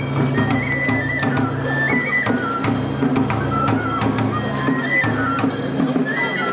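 Izumo kagura accompaniment: a bamboo transverse flute playing a high, wavering melody over steady drum and small hand-cymbal strikes.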